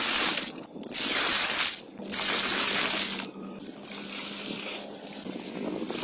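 Water rushing and splashing in three loud bursts of about a second each, then running on more quietly.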